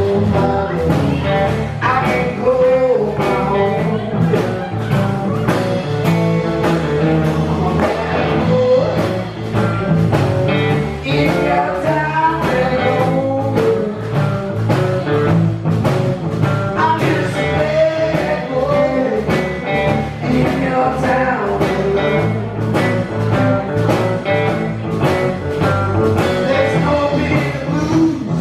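Blues-rock band playing a song, with guitar over a steady drum beat.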